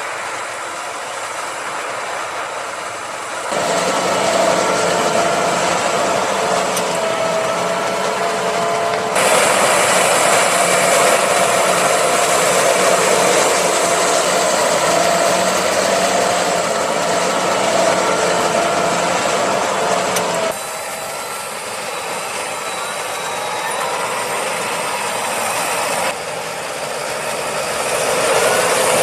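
Fendt Vario 826 tractor running under load, pulling a Lemken Juwel 8 reversible plough through the soil, with a steady engine hum and mechanical clatter. The level jumps abruptly about four times.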